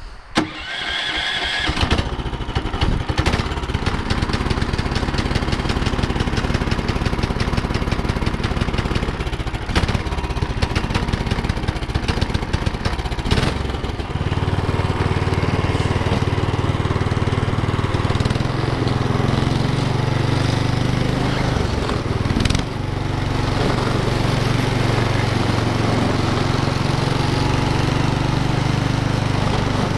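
Small gas engine on a homemade track sled starting with the choke on, catching almost at once and running steadily. About fourteen seconds in its note turns deeper and stronger as the engine takes up load and the sled gets under way.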